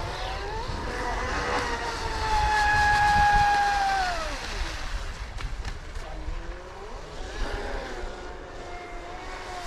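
Brushless electric motor (TP 4050, 1700kv, on 4S) of a 40-inch scale Everingham race boat whining at speed across the water. Its pitch rises about a second in, holds steady, falls away around four to five seconds in, and climbs again near the end.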